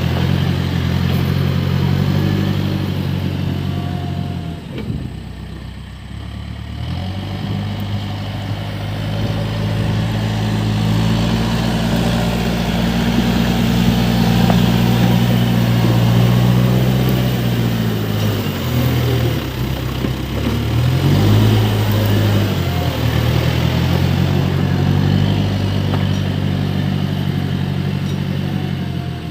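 Case backhoe loader's diesel engine running, its revs rising and falling as the machine works. The revs sag about a quarter of the way in, climb to a high steady pitch through the middle, and dip twice more just past two-thirds through.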